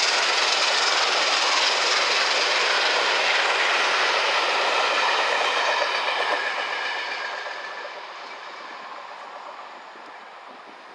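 Passenger coaches of a train hauled by A1 Pacific steam locomotive 60163 Tornado rolling past on the rails. The noise dies away from about six seconds in as the train draws off into the distance.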